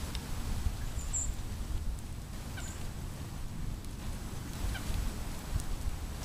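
Small birds giving a few brief, high chip notes, about a second in, near the middle and again near the end, one of them falling in pitch. A steady low rumble lies under them.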